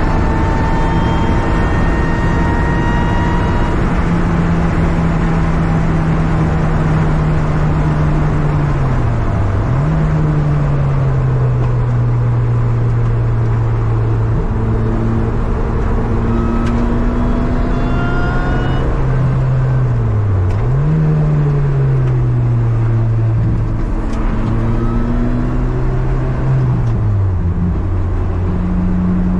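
Car engine running at steady revs over a haze of road and wind noise. The engine note dips and jumps back up twice, about ten and twenty seconds in, and falls away again near the end.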